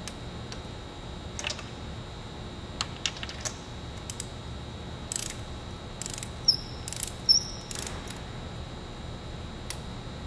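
Socket ratchet tightening spark plugs: scattered metallic clicks and clinks at an irregular pace, with two sharper, ringing clinks about six and a half and seven and a half seconds in, over a steady low hum.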